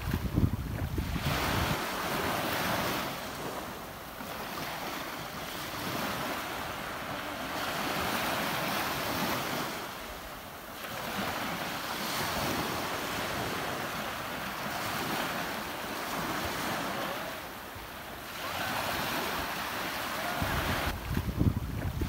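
Ocean surf washing in and out, an even rushing that swells and fades every several seconds. Wind buffets the microphone with a low rumble at the start and again near the end.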